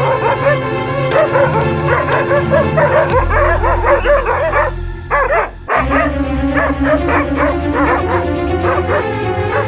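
Music with a dog's short, high yips and whimpers over it; the sound thins out and briefly drops away about six seconds in, then resumes.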